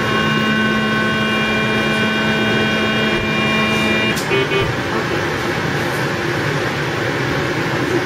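Radiofrequency surgical generator sounding its steady activation tone while the bipolar instrument delivers energy to the soft palate; the tone stops about four seconds in and a brief double beep follows. A steady hiss runs underneath.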